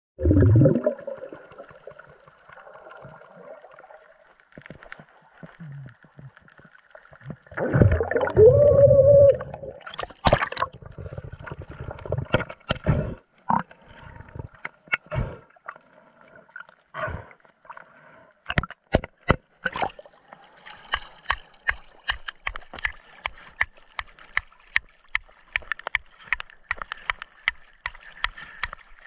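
Muffled underwater sound of a diver: a loud gurgle of bubbles at the start and another about eight seconds in, then a run of sharp clicks and taps that come faster toward the end.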